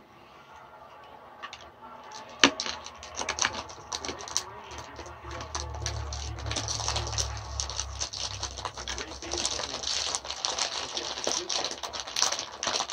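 Dense, irregular clicking and crackling, with a low hum for a few seconds in the middle.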